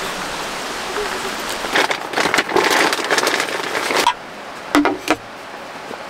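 Steady rushing of a valley stream, overlaid about two seconds in by dense rustling and scuffing as someone climbs into a tent over its bedding. The stream noise cuts off suddenly about four seconds in, leaving a quieter background with one short hum near the end.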